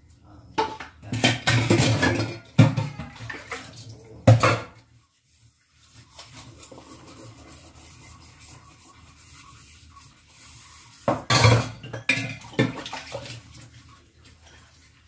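Dishes and cutlery clattering and clinking as they are washed by hand. The clatter comes in two bouts, the first about four seconds long and the second about two, with a quieter stretch between.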